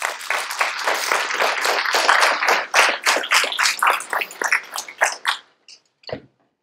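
Audience applauding: many hands clapping at once, thinning to a few last claps and stopping about five and a half seconds in.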